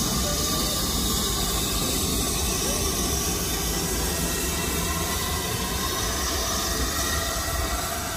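BR Standard Class 9F steam locomotive moving slowly past, with a steady hiss of escaping steam over the low rumble of its wheels on the rails.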